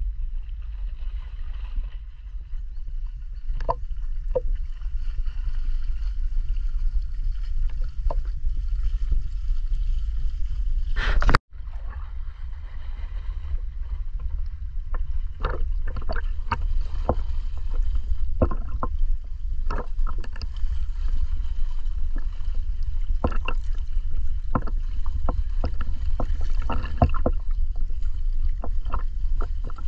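Muffled underwater noise from a camera while snorkeling: a steady low rumble with scattered clicks and crackles. The sound drops out for an instant a little over a third of the way in.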